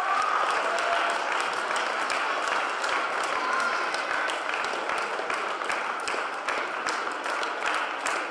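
Audience applauding, many hands clapping in a dense patter that thins out gradually toward the end.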